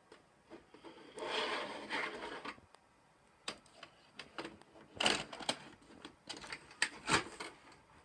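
A VHS cassette being handled and pushed into a front-loading Emerson VCR, which draws it in: a rustle of handling about a second in, then a run of sharp mechanical clicks and clunks, the loudest about five and seven seconds in.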